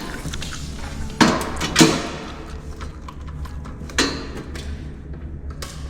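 Several short knocks and clatters, about one, two and four seconds in, over a steady low hum.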